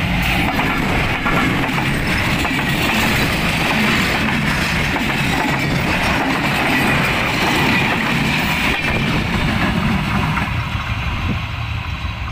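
Diesel-hauled passenger train passing close by: the locomotive goes past at the start, then the coaches rumble and clatter along the rails, wheels clicking over the rail joints. The sound eases off somewhat near the end.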